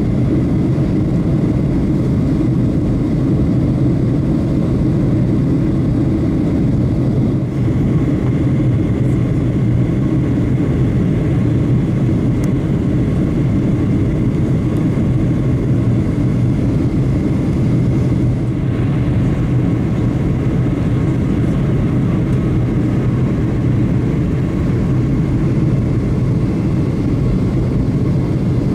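Steady cabin noise inside a Boeing 737-800 on approach: a low rumble from its CFM56-7B jet engines and the air rushing past the fuselage, with a faint steady high tone over it.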